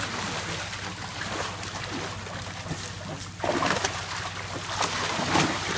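Water splashing and sloshing as a wet cast net is hauled and gathered in shallow water, growing louder about three and a half seconds in. A steady low hum runs underneath.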